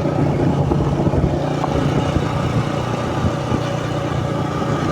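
Motor vehicle engine running steadily with road rumble, heard from on board while driving along a road.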